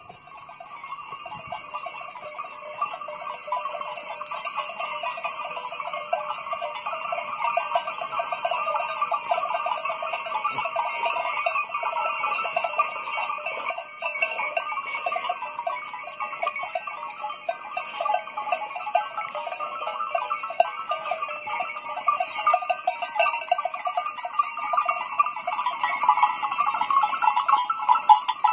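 A herd of goats on the move, with many neck bells clanking continuously. It grows louder over the first few seconds as the herd approaches.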